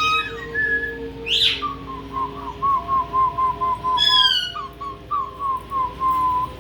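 Caique parrot whistling: a sharp rising squeak, then a quick run of short whistled notes, about three a second, with one louder call in the middle.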